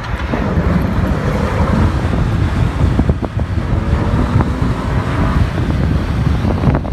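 Car engine and exhaust rumbling low under heavy wind buffeting on the microphone, with a few short sharp clicks about three and four and a half seconds in.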